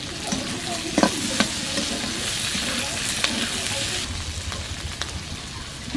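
Sliced onion and capsicum sizzling in hot oil in a metal kadai while being stir-fried, with the metal spatula scraping and tapping against the pan a few times.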